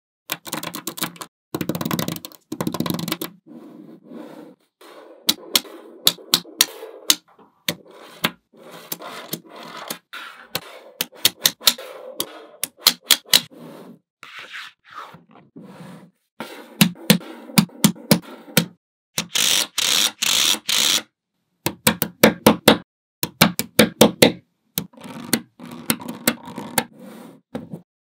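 Small magnetic balls clicking and snapping together as sheets of them are joined and pressed into a block, with short rattling runs as rows settle into place. The densest, loudest rattle comes a little past two-thirds of the way through.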